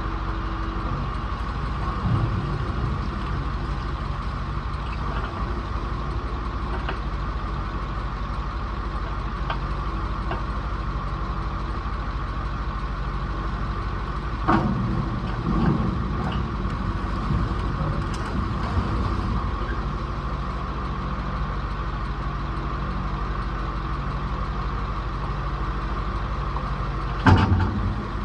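A vehicle engine running steadily, with a few short clunks over it, the loudest near the end.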